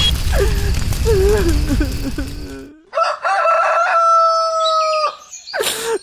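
A rooster crowing: a few quick notes from about three seconds in, then one long held note lasting about two seconds. Before it, wavering pitched cries sound over a low rumble that cuts off suddenly.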